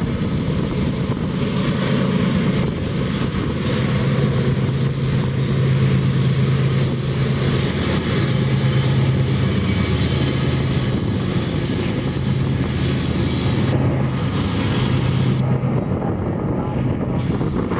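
Several Union Pacific diesel-electric locomotives working hard under heavy load as they pull a stack train up a steep grade: a steady engine drone with a strong low hum.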